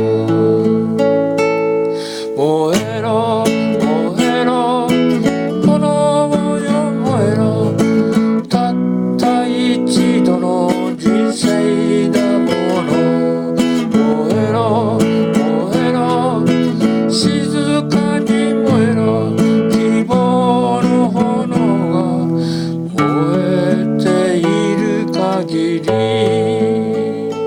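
Acoustic guitar strummed and picked as a folk-song accompaniment, with a wavering melody line over the chords, in an instrumental passage without lyrics.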